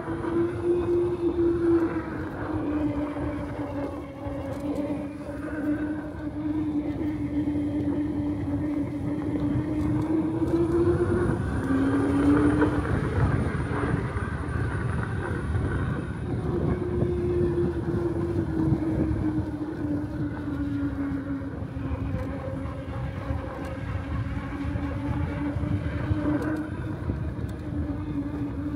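Electric bike motor whining steadily while riding, its pitch drifting up and down with speed and dipping briefly about halfway through, over a constant rush of wind and road noise.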